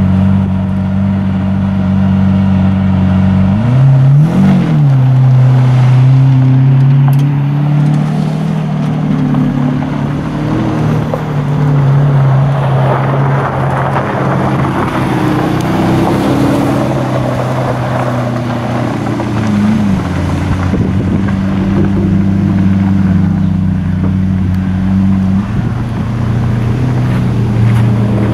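Idling supercar engines with a short rev blip about four seconds in, then a Lamborghini Aventador SV Roadster's 6.5-litre V12 pulling away at low speed over gravel with a stretch of rough tyre-on-gravel noise. Near the end a Porsche 911 Carrera 4S's twin-turbo flat-six runs at low speed behind it.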